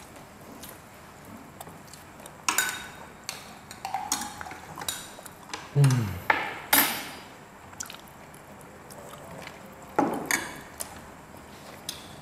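Tableware sounds at a meal: forks clinking on a plate and glasses being handled and set down on a table, with drinks being sipped. About half a dozen separate sharp knocks and clinks come with short quiet gaps between them.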